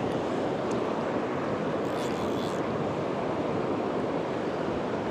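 Steady rushing of river rapids, whitewater running over boulders in a mountain river.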